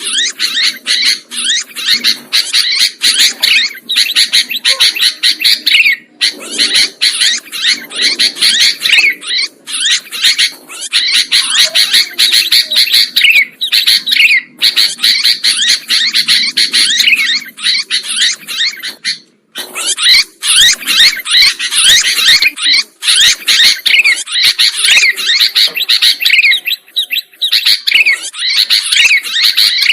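Sooty-headed bulbul (kutilang) chirping and calling rapidly and without let-up, a busy stream of short high notes, broken once briefly about two-thirds of the way through.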